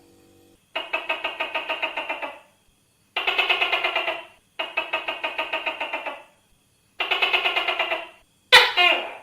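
Tokay gecko calling: four rattling bursts of rapid pulses, each lasting over a second, then a single sharp falling bark near the end.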